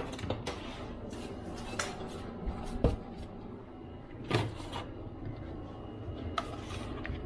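Small tools clicking and clinking lightly and irregularly against the opened laptop's internals while dust and debris are cleaned out, with two sharper clicks about three and four and a half seconds in, over a low steady hum.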